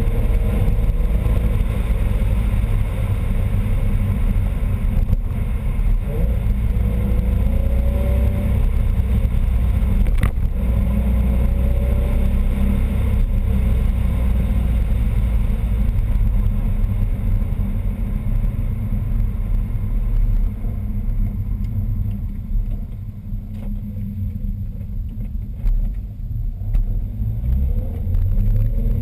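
Supercharged R32's engine running and revving, with a whine that rises in pitch each time the revs climb. The engine eases off for a few seconds about two-thirds of the way through. The whine comes from a boost leak at the diverter valve, one of whose nuts had backed off.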